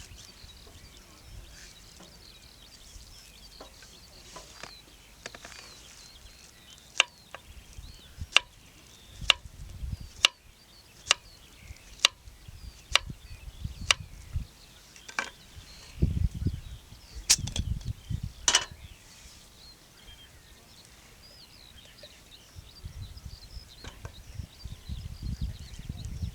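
A series of sharp knocks, roughly one a second, then two louder ones a little further apart, with faint birdsong behind.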